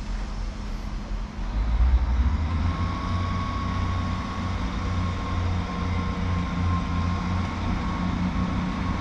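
Class 158 diesel multiple unit running through the station: a low diesel rumble swells about two seconds in and then holds steady, with a thin steady whine above it.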